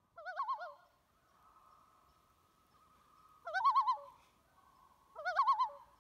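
A bird-like warbling call, repeated three times in short phrases of under a second, each a rapid wavering of pitch over a very faint steady tone.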